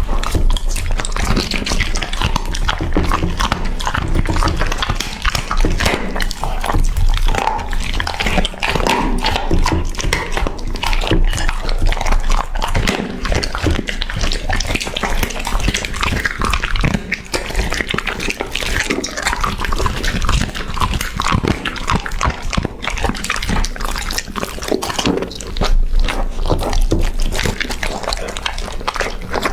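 A dog eating: steady close-up chewing and gnawing, dense irregular clicks and crackles of teeth working through its food.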